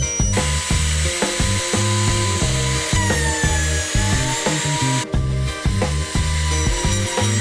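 A woodworking power tool cutting wood: a whining, hissing cut with a tone that falls slowly midway. It stops abruptly about five seconds in and starts again near the end. Background music with a steady, rhythmic bass line plays over it.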